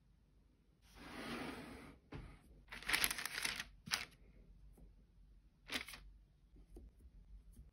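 Baking paper rustling and crinkling as it is handled, in several separate bursts, the loudest about three seconds in, with a short sharp crackle just after.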